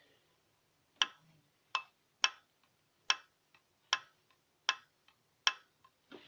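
Sharp metallic ticking from the valvetrain rockers of a Jeep Grand Cherokee WJ's 4.0L straight-six: seven loud ticks in about five seconds at slightly uneven spacing, with fainter ticks between. The owner has found the hydraulic lifters firm and the valves properly adjusted, so the knock is not down to loose lash.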